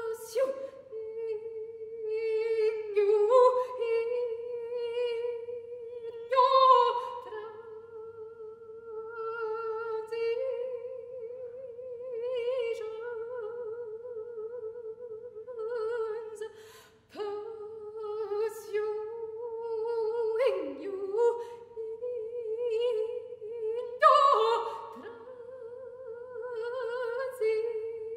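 A solo soprano singing a cappella, holding long notes on nearly one pitch with vibrato. Several times the line is broken by sudden accented attacks that slide downward, and there is a brief break about 17 seconds in.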